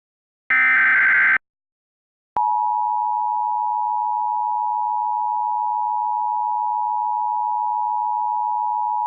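Emergency Alert System test tones: the last burst of the SAME digital header, a warbling data squawk lasting about a second, then after a short gap the steady EAS two-tone attention signal (853 and 960 Hz) sounding continuously from about two seconds in.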